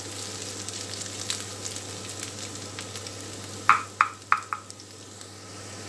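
Chopped onion sizzling in a nonstick frying pan as it is stirred with a wooden spatula; the onion is fried golden and done. About two-thirds through come four quick ringing taps of the spatula against the pan.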